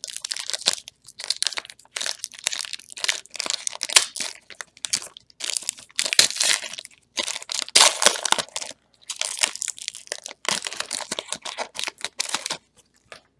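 Wrapper of a football card pack being torn open and crinkled by hand, in irregular crackling bursts that stop shortly before the end.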